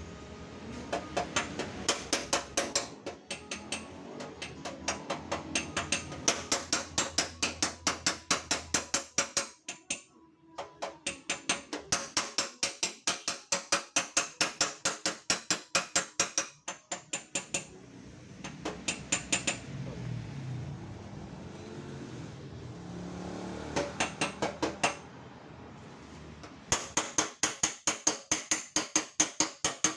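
Hammer tapping rapidly on the dented sheet-metal front fender of a Toyota Agya, about five blows a second, in runs of a few seconds broken by short pauses. This is panel beating to straighten the dent.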